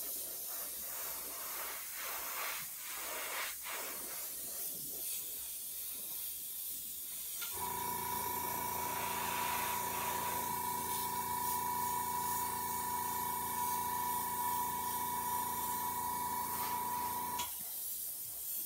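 Iwata airbrush hissing as it sprays paint in light passes. About seven seconds in, a steady electric motor hum comes on and cuts off suddenly about ten seconds later.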